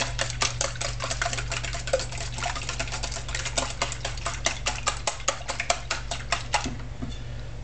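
Whisk beating eggs in a bowl, clicking against the sides in a quick steady rhythm of about five strokes a second, stopping near the end. A steady low hum runs underneath.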